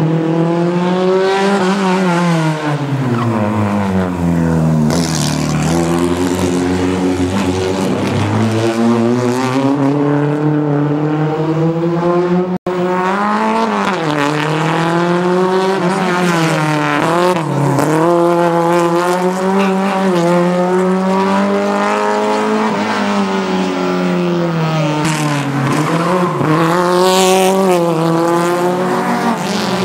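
Peugeot 106 Maxi Kit Car's four-cylinder rally engine revving hard, its pitch climbing and dropping again and again as it is driven through tight turns. Short tyre squeals come about five seconds in and again near the end.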